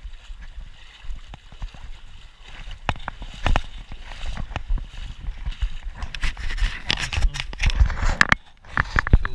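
Water sloshing and splashing as someone wades through a river, with irregular knocks, growing busier and louder in the second half.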